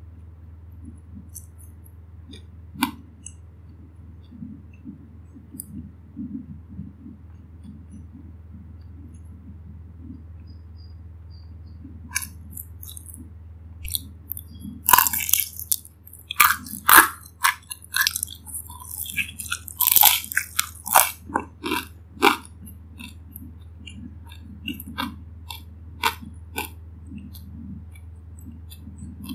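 Close-up chewing, then from about twelve seconds in a run of loud, crisp crunches as a fried dumpling is bitten and chewed. The crunching eases back into quieter chewing with small clicks near the end, over a steady low hum.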